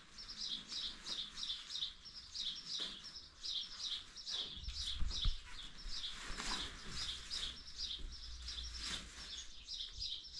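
A bird chirping over and over, short high chirps about three a second, with a low rumble in the middle.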